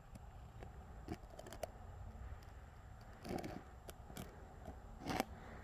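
Faint handling noises over a low steady rumble: scattered light clicks and a few short scrapes, the loudest a sharp click about five seconds in.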